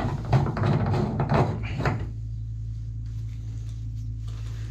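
Knocks and clicks of hand tools and metal tap fittings being handled at a bath for about two seconds, then only a steady low hum.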